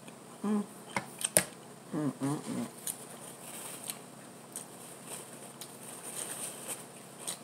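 A few sharp clicks about a second in, then a paper napkin rustling and crinkling as it is handled and unfolded, with a brief hum from the eater around two seconds in.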